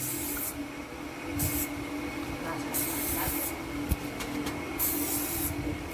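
Aerosol spray can hissing in four short bursts of different lengths, sprayed onto a cow's sprained, swollen leg, over a steady low hum.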